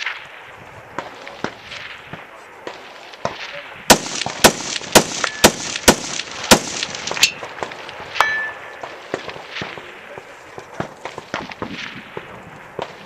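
Rapid string of about seven loud gunshots, about half a second apart, a few seconds in, with quieter shots scattered before and after. A steel target rings briefly after the string.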